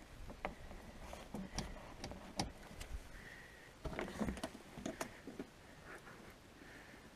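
Jumper cable clamps being worked onto a boat's starting-battery terminals after a bad connection: a scattering of faint metallic clicks, scrapes and knocks.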